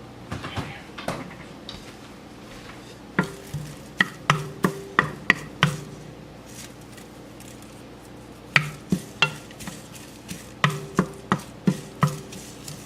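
A kitchen utensil stirring and clacking against a pan of curry leaves being dry-roasted without oil, in two runs of quick sharp strikes, about three a second, starting about three seconds in and again near nine seconds in.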